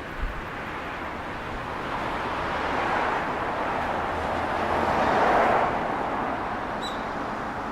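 Hankyu Railway 5500-series electric train passing, its rolling noise swelling to a peak about five seconds in and then easing off.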